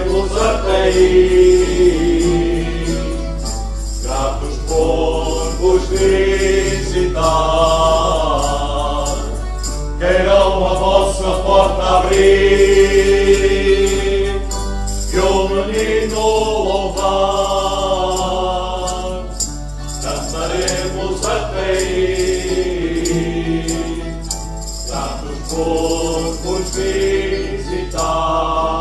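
A group of men singing a traditional Azorean Cantar aos Reis (Epiphany song) together with guitar accompaniment, in sung phrases of a few seconds with short breaks between them.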